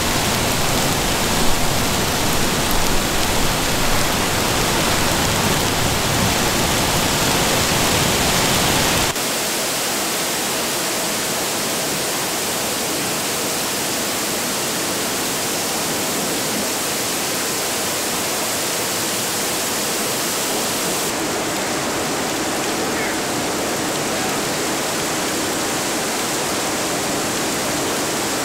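Hail and heavy rain pelting wet pavement: a dense steady hiss with a few louder spikes in the first few seconds. About nine seconds in it cuts to a softer, thinner steady downpour of rain.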